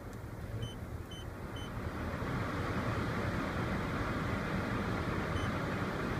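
Dodge Grand Caravan's HVAC blower rushing air over the low hum of the idling engine, the air noise swelling about two seconds in as the airflow mode is switched. Three short electronic beeps from the controls come about a second in, and one more near the end.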